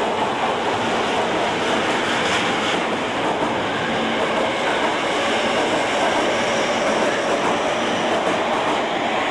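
Osaka Metro Midosuji Line subway train accelerating out of an underground station: a steady loud rush of wheels and running gear, with a faint high whine rising in pitch in the second half.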